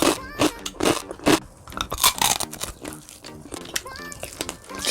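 Close-miked eating sounds: irregular crunchy bites and chewing.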